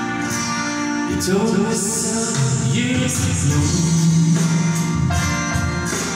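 A man singing a slow song into a microphone over a backing track with guitar.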